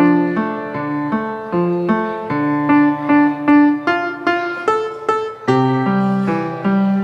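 Instrumental keyboard music with a piano-like sound: a melody of short, separate notes over held bass notes.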